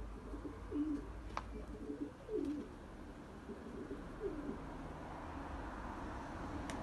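Takla pigeons cooing: several low coos in the first two and a half seconds and another about four seconds in, with one sharp click about a second and a half in.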